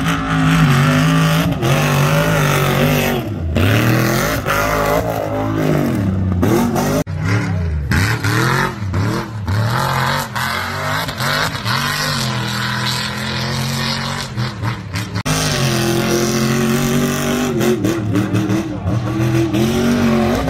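Mud truck's engine revving hard, rising and falling over and over as the truck tears around the dirt track. The sound changes abruptly about seven and again about fifteen seconds in.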